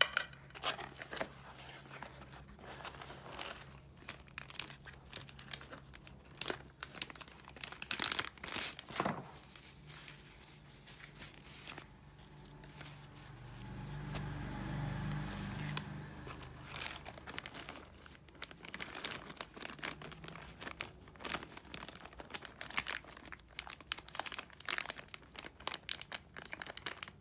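Plastic packaging crinkling and being torn open, with many sharp clicks and handling noises. A low rumble swells and fades about halfway through.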